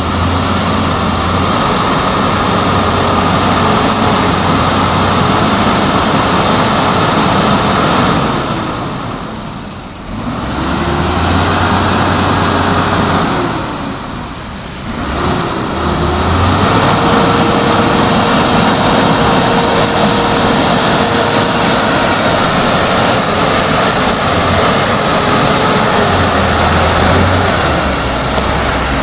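Sinotruk HOWO tractor unit's diesel engine revving hard under load as it hauls a container trailer up out of deep mud. The revs drop away twice for a moment in the first half, then hold high and steady.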